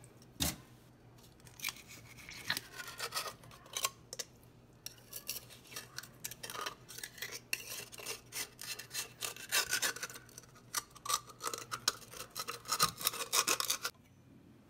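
Kitchen knife scraping against the inside of a geoduck clam's shell in quick, irregular strokes with sharp clicks, working the clam's body free of the shell.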